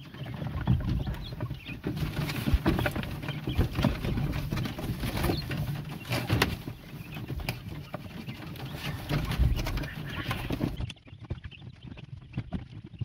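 Fresh cut grass being tossed and rustling into a quail pen, with handling knocks, while the quail call. It turns suddenly quieter after about eleven seconds.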